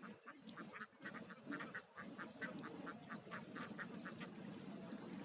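Birds calling: a rapid run of short, repeated calls, about five a second, with thin high chirps above them; the run of lower calls fades out about four seconds in.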